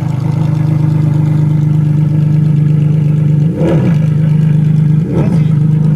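Ferrari Enzo V12, in Gemballa MIG-U1 tuned form, idling steadily, with two quick throttle blips about three and a half and five seconds in, each a brief rise and fall in engine pitch.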